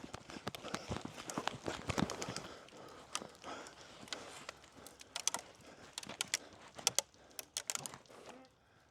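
Running footsteps on the ground with gear rattling, a quick uneven run of knocks, followed in the second half by several sharp, high clicks that could be airsoft gear or shots.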